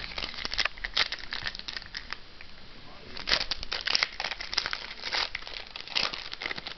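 Foil wrapper of a 2008 Score Select football card pack crinkling and tearing as it is handled and opened: irregular crackles, busiest about three seconds in and again near the end.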